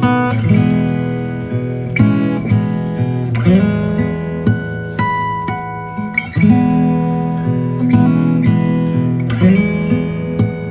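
Background music: an acoustic guitar playing, with plucked notes over chords that change about every two seconds.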